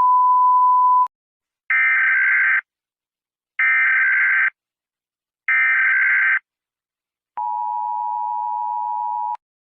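Emergency Alert System tones: a single steady beep about a second long, then three one-second bursts of screechy SAME header data tones with a second's gap between them, then the two-tone EAS attention signal held steady for about two seconds.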